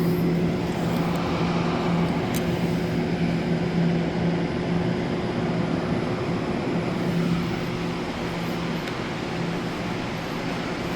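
Electric train running at a station: a steady rumble with a low, wavering electrical hum.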